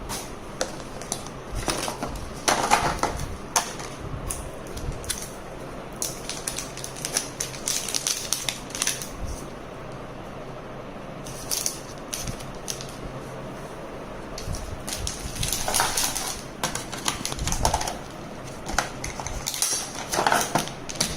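Irregular taps, clicks and short rustles of a smartphone and its packaging being handled during an unboxing, over a steady low hum.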